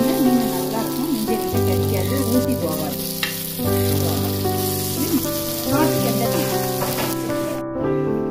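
Masala-coated fish steaks sizzling as they shallow-fry on a flat griddle, with a metal spatula scraping under them to turn them. The sizzling cuts off suddenly near the end.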